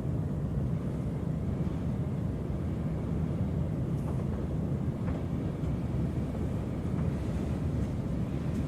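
Room tone of a strong Beaufort force 6 wind heard from inside a room: a steady low rumble, with a few faint ticks.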